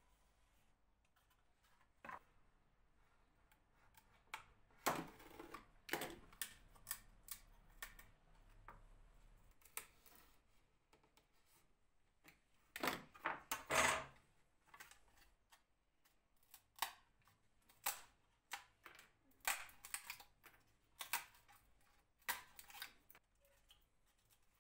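Irregular clicks, taps and short scrapes from hand work on an old mandolin under restoration, with busier clusters about five seconds in and again about thirteen seconds in.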